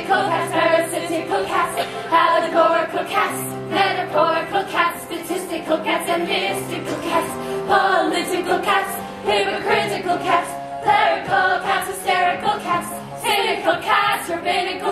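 Live stage-musical number: an ensemble cast singing together over an instrumental accompaniment with sustained low notes and a steady cymbal beat.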